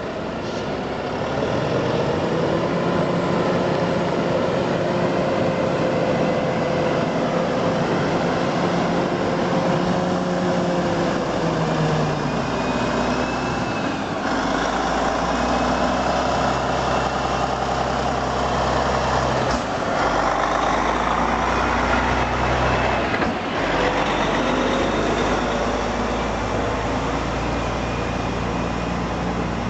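Engines of heavy log-hauling machinery running, the pitch shifting as the load changes; the sound changes abruptly three times, as between separate clips.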